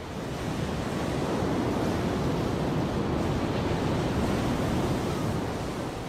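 Heavy ocean surf breaking and churning against rocks: a steady wash of white water that swells slightly in the first second and eases near the end.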